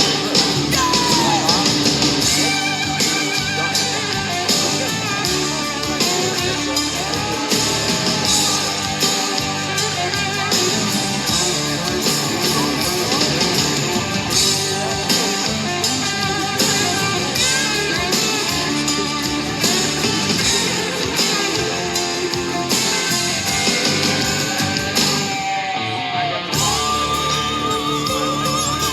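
Rock music with prominent guitar over a steady drum beat, with no words sung clearly.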